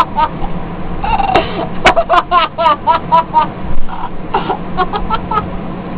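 A person's voice making a rapid string of short, squeaky, wordless noises with clicks between them, over a steady low hum.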